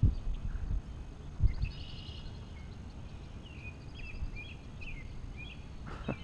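Songbirds calling over and over with short chirping notes, over a steady low rumble. Two dull bumps sound, one near the start and one about a second and a half in.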